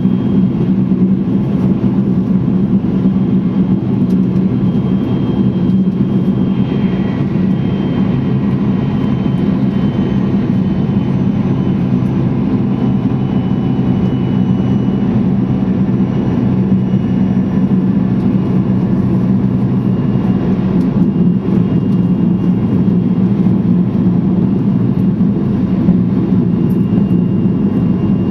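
Cabin running noise of a Tohoku Shinkansen bullet train at speed: a loud, steady rumble with a low hum.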